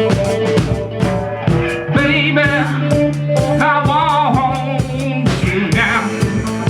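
Rock band playing: a lead melody with wavering, bent notes over sustained bass notes and a steady drum beat.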